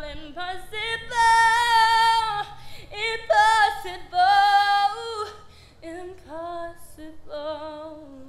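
A young woman singing unaccompanied: long held notes that slide between pitches, in several phrases with short breaths between and no clear words. The last phrases are quieter and lower.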